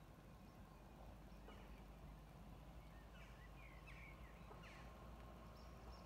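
Near silence: faint outdoor ambience with a few faint, short bird chirps between about a second and a half and five seconds in.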